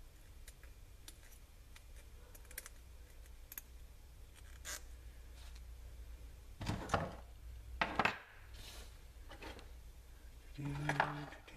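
Small brass valve parts of a Coleman liquid-fuel stove clicking and clinking in the hands as they are fitted back together, with a couple of louder clatters of metal tools on the wooden bench about seven and eight seconds in.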